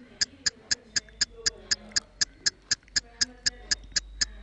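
Steady ticking, evenly spaced at about four ticks a second, like a clock or countdown timer.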